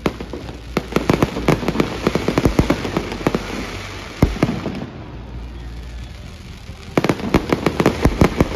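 Fireworks going off close overhead in rapid volleys of sharp bangs and crackles. A dense run starts about a second in, a single bang follows near the middle, and after a short lull another rapid volley begins near the end.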